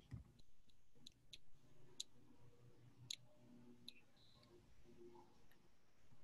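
Near silence with a handful of faint, scattered clicks.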